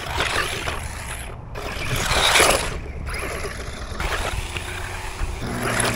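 Small RC truck driving over rough ground: rolling, scraping tyre and drivetrain noise that swells and fades, loudest about two seconds in.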